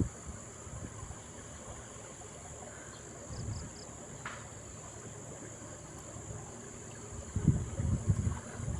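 Steady high-pitched insect chirring, with three short high pips in quick succession about three and a half seconds in.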